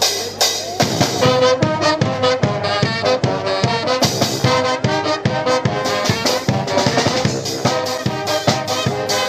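Brass band playing live, horns over a steady drum beat, the full band coming in about a second in.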